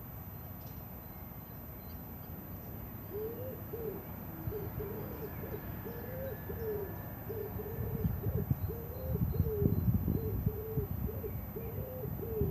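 A bird giving a long run of low hooting, cooing calls, about two a second, starting a few seconds in. From about two-thirds of the way through, wind gusts buffet the microphone.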